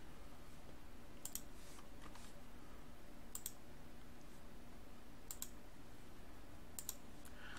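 Computer mouse double-clicking about four times, roughly two seconds apart, while opening folders, over a faint steady hum.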